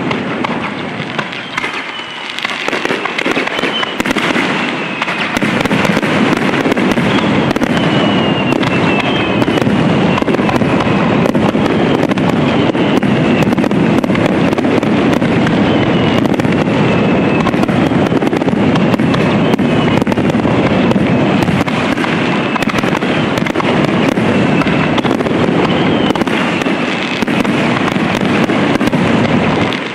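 Aerial fireworks in a rapid star mine barrage: many shells bursting in quick succession with continuous bangs and crackling, denser from about five seconds in, and short falling whistles now and then.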